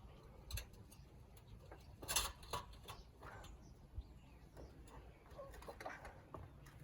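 Faint bird calls with a few light clicks and knocks scattered through, the loudest a little over two seconds in.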